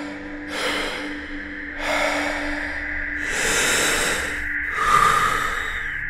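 Deep, rhythmic breaths, each a rushing inhale and a forceful exhale, about two full breath cycles. These are the last paced breaths of a Wim Hof breathing round before the breath hold, over a steady low music drone.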